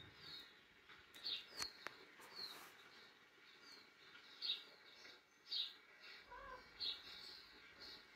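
Small birds chirping from a television's speakers: short, high chirps that fall in pitch, repeating irregularly every half second or so, with a couple of faint clicks about one and a half seconds in.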